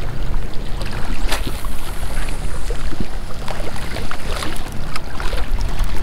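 Wind rumbling steadily on the microphone, with scattered light clicks and knocks over it.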